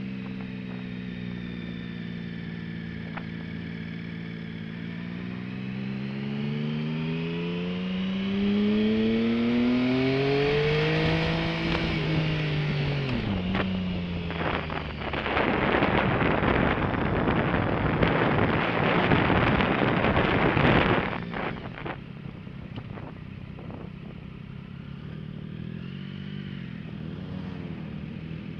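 Motorcycle engine heard from the rider's own bike: its note sags, climbs steadily as the bike accelerates, and drops back about halfway through. Then comes a loud rush of wind on the microphone for several seconds, and the engine settles to a quieter, steady run.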